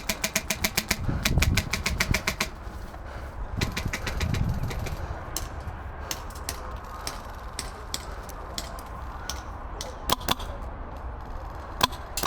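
Airsoft guns firing: two rapid full-auto bursts of sharp clicking shots in the first couple of seconds, then scattered single shots, and another quick string of shots near the end.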